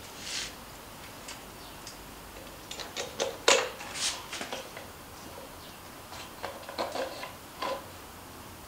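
Scattered metal clicks and knocks as a Honda Monkey's front wheel is fitted into its fork by hand, the loudest knock about three and a half seconds in.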